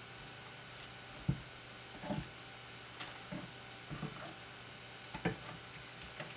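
Knife and wet Japanese sea bass being worked on a cutting board during filleting: soft, irregular wet squishes and light taps, about nine in a few seconds.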